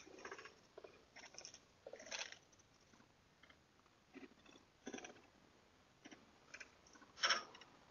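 Faint, irregular rustling, scraping and rattling, a few short bursts a second or so apart with the loudest near the end: a person handling a wooden gate and its latch.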